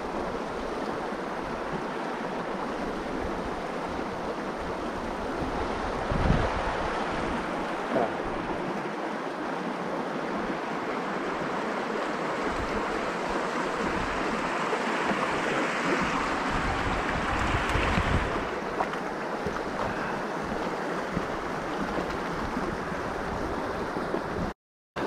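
The shallow Pecos River flowing over rocks: a steady rush of water. A few short low thumps of wind or handling on the microphone stand out.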